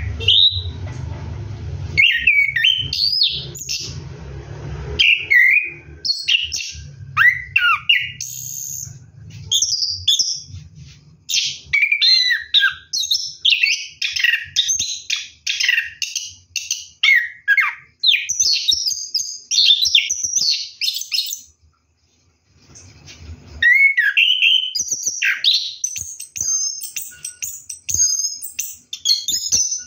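Orange-headed thrush singing in a long, continuous run of quick, varied whistled phrases, with a brief pause about two-thirds of the way through.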